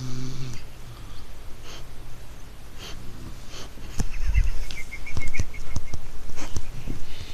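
A sleeping man snoring, a snore right at the start followed by quieter breathing. From about four seconds in there are rustling and knocks, with a quick run of high squeaks a little after.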